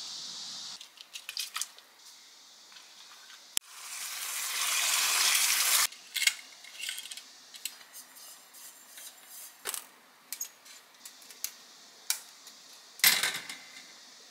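Small metal clicks and clinks of a Kovea portable gas camping stove being handled: a gas canister fitted to it and a wire grill set on top, with one loud clank near the end. A few seconds in, a rising hiss swells and cuts off suddenly.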